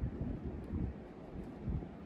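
Wind buffeting the microphone: an uneven low rumble that swells and drops in irregular gusts.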